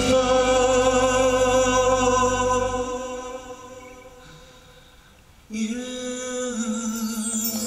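A song plays: a singer holds a long note with vibrato that fades away about four seconds in, then a new sung phrase starts about five and a half seconds in.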